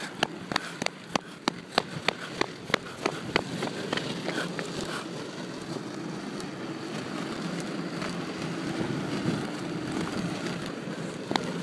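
Running footsteps on pavement, about three a second, which stop a few seconds in and give way to a steady rushing noise.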